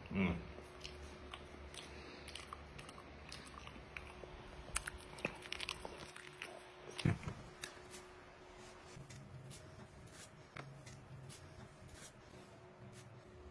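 A man biting and chewing peeled banana close up, with small wet mouth clicks and smacks scattered throughout, busiest around five to seven seconds in. A faint steady hum runs underneath.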